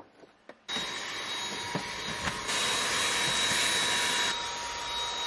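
Dyson cordless handheld vacuum switching on under a second in and running steadily with a high motor whine while vacuuming a car's floor mat. It is louder for about two seconds in the middle.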